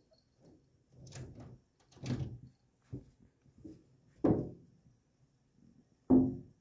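A cat paws at a window, making a series of irregular knocks and thumps on the glass and wooden sash. The loudest come about four seconds in and near the end, and each rings briefly before fading.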